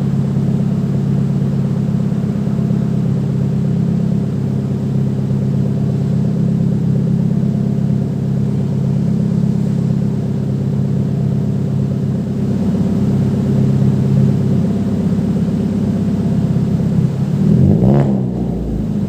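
2018 Hyundai Elantra's engine idling steadily through its muffler, then blipped once near the end in a short rev that rises and falls back to idle.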